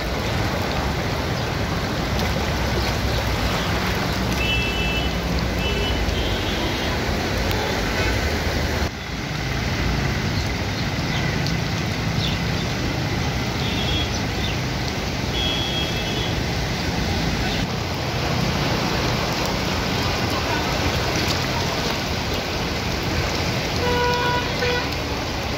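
Steady rush of rain, floodwater and traffic driving through water on a flooded road, with short vehicle horn honks several times.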